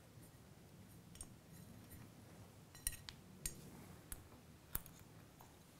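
A few faint, sharp metal clicks as small motorcycle clutch parts, the pressure plate and its thrust washer, are handled. The clicks come about four times in the second half, over quiet room tone.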